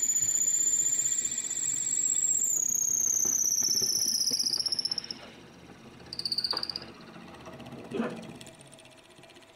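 A 17/64-inch drill bit in the lathe's tailstock boring into a spinning wooden blank. It gives a high-pitched, pulsing squeal that drops in pitch about halfway through and stops at about five seconds, and it squeals again briefly about a second later.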